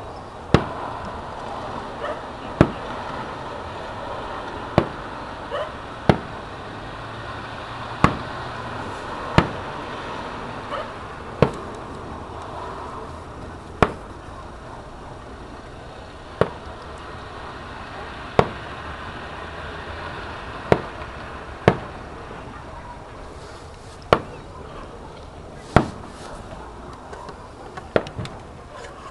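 Aerial firework shells bursting in the distance, one sharp bang every second or two, each with a short echo.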